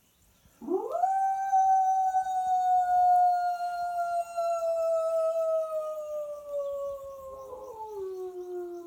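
A person imitating a wolf howl: one long howl that sweeps up quickly, holds, then slowly sinks in pitch, breaking to a lower note near the end. It is the kind of howl used to call wild wolves into answering.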